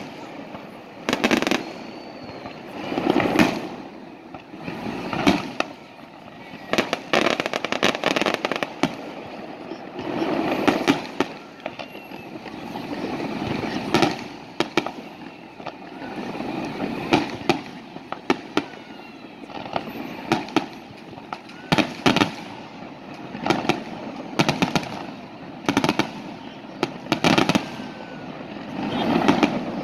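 Fireworks display: aerial shells bursting one after another, with many sharp bangs, some close together, and longer rumbling booms in between.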